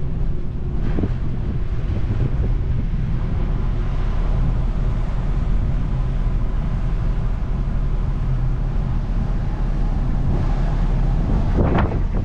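Steady low rumble of a large car ferry under way, with wind buffeting the microphone. Wind gusts swell louder near the end.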